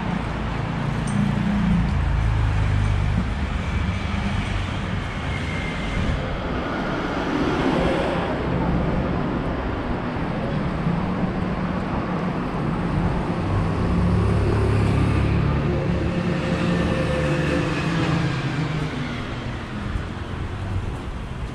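City street traffic: motor vehicles passing close by with a low engine and tyre rumble that swells twice as vehicles go past.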